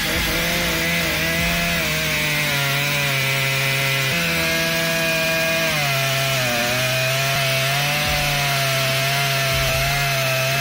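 Makita EA7900PRZ1 two-stroke chainsaw running at high revs while cutting wood. Its engine note wavers, dips briefly about six seconds in and then recovers.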